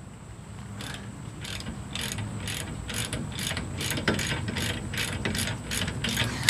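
Half-inch-drive ratchet with an 18 mm socket clicking in quick, even strokes, about three a second, as a loosened suspension pinch bolt is run out.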